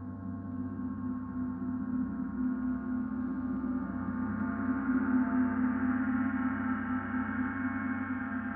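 Large suspended gong played with felt-headed mallets: a sustained wash of many overlapping tones over a strong low hum, with no distinct strikes, growing louder and brighter about halfway through.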